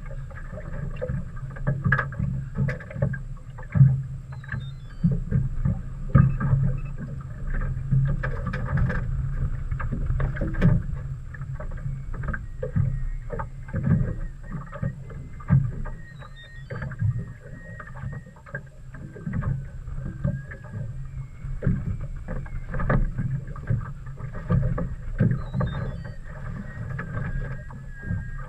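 A boat on the water: a steady low engine hum, with irregular knocks and water slapping against the hull.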